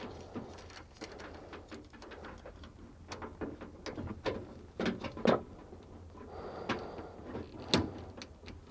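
Scattered plastic clicks and knocks from a refrigerator thermistor being seated in its retainer and its cover being fitted, the two sharpest about five and nearly eight seconds in.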